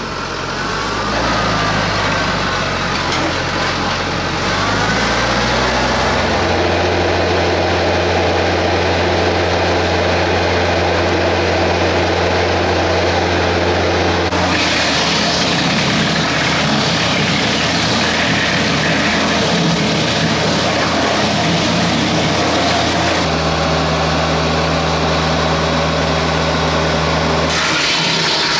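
Compact diesel tractor engine running steadily at high revs to drive a PTO wood chipper. Its tone shifts abruptly a few times.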